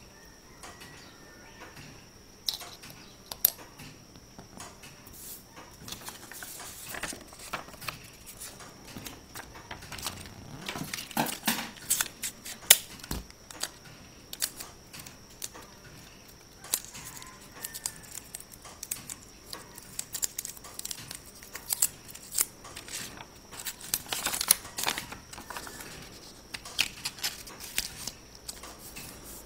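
Paper rustling and crinkling as a paper disc is handled and pressed down, with scattered sharp taps and clicks of wooden pieces on a wooden board. The handling comes in busier spells about a third of the way in and again near the end.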